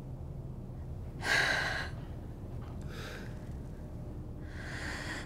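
A person breathing audibly: three breathy gasps or sighs, the first, about a second in, the loudest.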